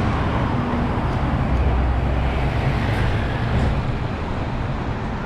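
Street traffic noise: a motor vehicle's engine rumbling close by, strongest about two to three seconds in, over a general street hubbub.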